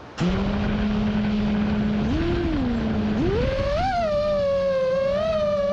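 FPV quadcopter's motors and propellers spinning with a steady whine, which wobbles briefly and then rises in pitch with a wavering tone as the throttle comes up about three seconds in.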